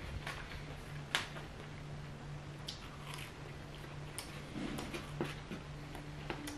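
Quiet chewing and mouth sounds of someone eating lasagna, with a few short clicks and scrapes of a plastic fork on a paper plate, the sharpest about a second in. A steady low hum runs underneath.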